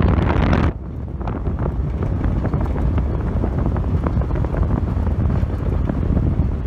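Wind buffeting the microphone in a moving vehicle, over a steady low rumble; the higher hiss cuts out suddenly under a second in, leaving mainly the low rumble.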